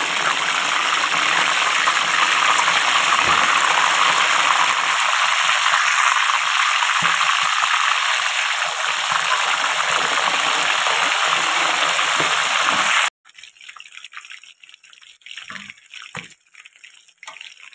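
Chicken pieces deep-frying in a wok of hot oil, the oil sizzling loudly and steadily. About thirteen seconds in the sound cuts off abruptly, leaving a much quieter, sparse crackling of the frying.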